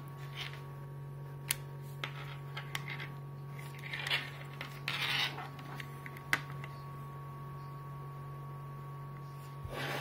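Handling noise of USB connectors and a USB load resistor board being plugged into a USB voltage/current meter: a few sharp plastic clicks and a longer rubbing scrape about four to five seconds in, over a steady low hum.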